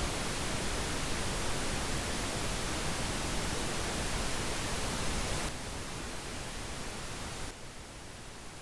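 Steady pink noise, an even hiss. It drops in level in two steps, about five and a half and seven and a half seconds in.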